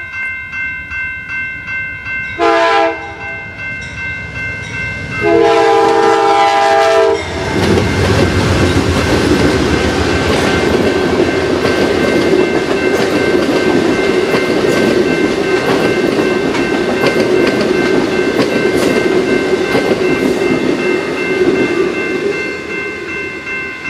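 Passenger train horn sounding a short blast, then a long one, as the train nears a grade crossing, then the steady rumble of bilevel passenger cars passing close by with wheels clicking over the rail joints. A crossing bell rings steadily under it all.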